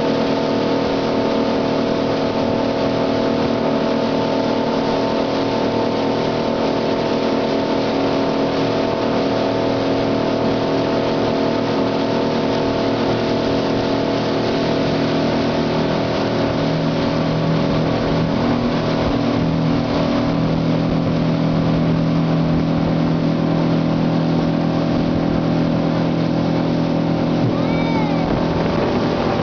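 A 200-horsepower speed boat's engine running steadily at cruising speed, with water rushing and spraying along the hull. Its low hum grows a little stronger about halfway through.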